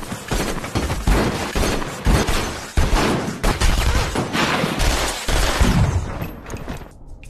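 A shootout of rapid, overlapping handgun fire, many shots in quick succession from several guns. The gunfire thins out and fades in the last second or so.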